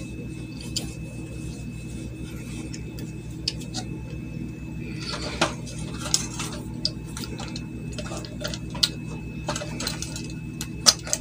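Scattered light clicks and scrapes as a CRT TV's circuit board is handled and a wire is worked through a hole in it. The clicks come more often from about five seconds in, over a steady low hum.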